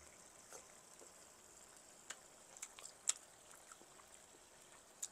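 Quiet chewing while tasting a piece of chicken curry: a handful of faint, scattered mouth clicks and smacks over a near-silent room.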